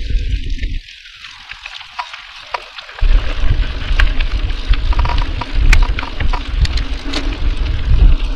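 Mountain bike riding fast on a dirt trail: wind rumble on the action camera's microphone with tyre noise and many sharp rattling clicks. About a second in, the rumble drops out and the sound goes thin and quiet for about two seconds before it returns.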